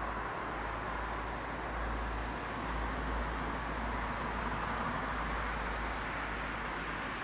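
Steady outdoor background noise: an even hiss with a low rumble underneath and no distinct events, swelling slightly now and then.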